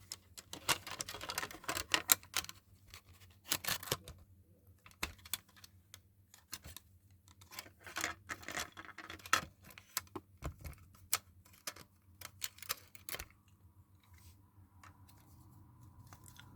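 Irregular plastic clicks, taps and scrapes as a screwdriver is worked in the release slot of a mains-powered smoke alarm to prise it off its mounting base. The handling noise stops about thirteen seconds in.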